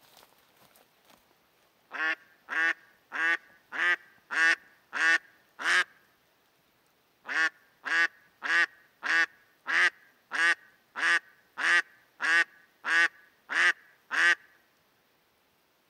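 A live hen decoy duck quacking loudly in two runs: about seven quacks roughly two a second, a short pause, then about twelve more. It is the hen's calling that draws drakes in during the spring hunt.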